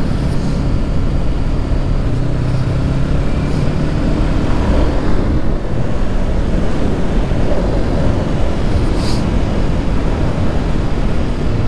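Honda CB500X's parallel-twin engine running steadily under way, mixed with heavy, even wind noise.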